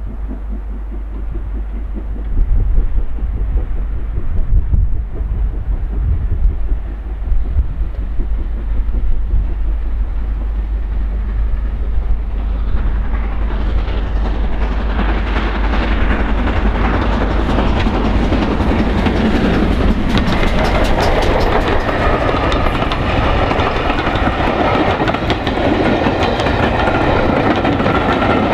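Steam-hauled passenger train approaching and passing close by. A low rumble builds into loud rail noise, with wheels clicking over rail joints as the coaches go past and thin steady high tones in the last several seconds.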